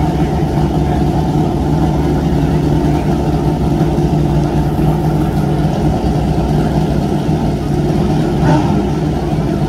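Drag-racing motorcycle engines idling steadily, with one brief louder blip near the end.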